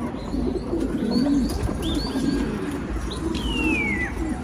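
Domestic pigeons cooing in repeated low warbling notes, with a few higher chirps and, near the end, a falling whistle-like call over them.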